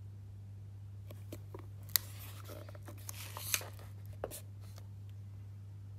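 A watch presentation box being handled by hand: a sharp click about two seconds in, a scraping rustle of the box's card and plastic, then a few more clicks and taps. A steady low hum sits underneath.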